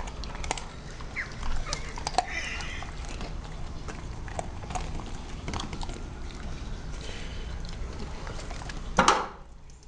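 Basset hound eating, with wet chewing and lip-smacking clicks coming irregularly. About nine seconds in there is one brief loud rush of noise.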